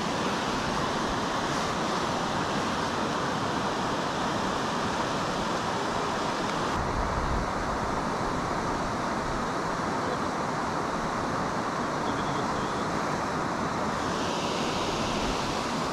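Steady rush of river water pouring over a low rock ledge. Its higher hiss drops for several seconds from about seven seconds in, then comes back near the end.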